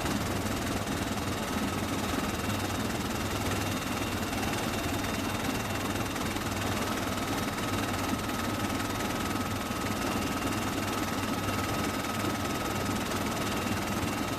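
Helicopter running steadily: a continuous engine and rotor rumble with a faint steady high whine, and no gunfire.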